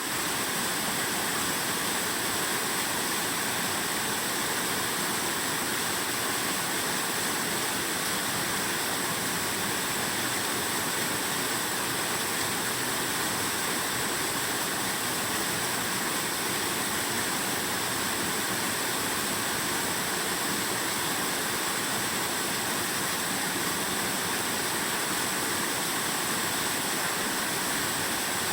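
Yōrō Falls, a tall waterfall, pouring steadily: an even, unbroken rush of falling water.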